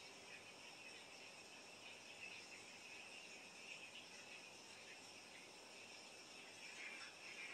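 Near silence: faint room tone with a steady high-pitched hum.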